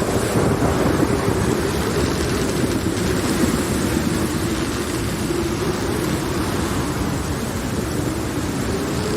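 Steady heavy rain with a low rumble underneath, and a held low droning tone that wavers slightly in pitch.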